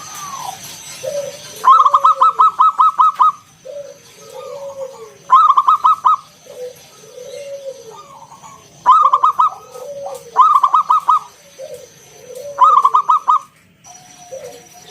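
Zebra dove (perkutut) cooing: five loud bursts of rapid, evenly pulsed notes, each about a second long, with softer, lower arched coos in between. A faint steady high whine sits behind it.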